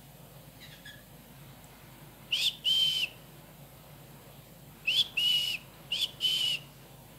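A whistled two-note call, a short rising note followed by a longer steady one, given three times: about two and a half seconds in, again about five seconds in, and once more a second later.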